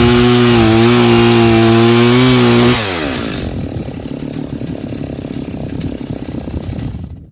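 Two-stroke chainsaw running loud and steady at high revs. About three seconds in its pitch slides down and it runs on more quietly and roughly, as the throttle comes off.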